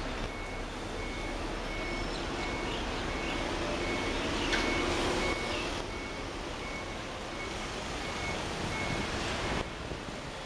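Cabin noise of a car driving in slow city traffic: a steady rumble and hiss of engine and tyres. Over it, a high electronic beep repeats evenly, about one and a half times a second.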